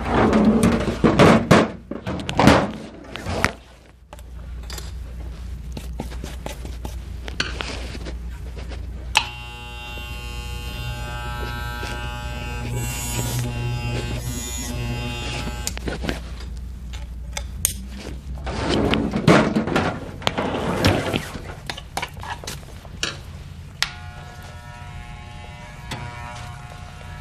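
Electric hair clippers being put into a metal tool-chest drawer: clattering and knocks as the drawer is loaded and shut. Then a corded hair clipper runs with a steady buzz for several seconds. After more handling noise, a clipper buzzes again near the end.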